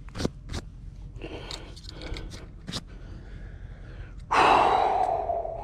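A person's long, heavy breath out, starting suddenly about four seconds in and fading over a second or so, after a few faint clicks of handling.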